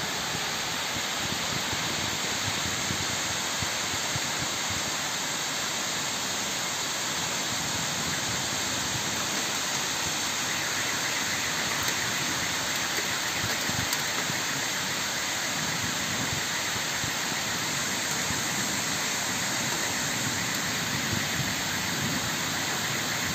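Heavy rain pouring steadily onto leafy trees, an even hiss of a downpour with no let-up.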